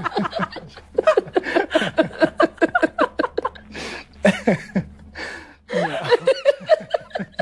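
A woman laughing hard, a long run of quick ha-ha sounds broken by a few short pauses.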